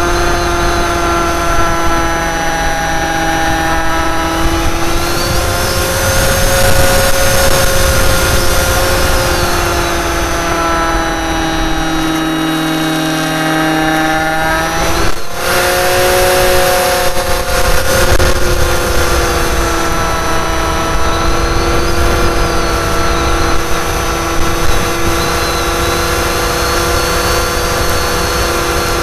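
Brushless Tower Pro 2408-21 outrunner motor driving a 7x6 propeller, heard on board the Wing Dragon 4 RC plane: a steady high-pitched whine over low wind rumble on the microphone. About halfway through the whine dips for an instant and then resumes.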